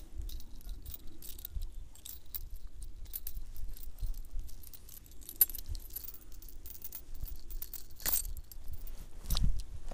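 Light metallic clicking and jingling of a spinner lure's blade and hook being handled while it is worked free of a small pike, over a low handling rumble. Two louder knocks come near the end.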